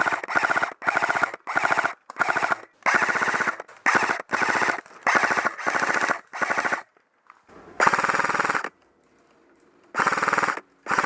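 Airsoft electric gun firing a string of short full-auto bursts, each under a second, with a rapid rattle of shots in every burst. About a dozen bursts come close together, then after a pause come a few more spaced out near the end.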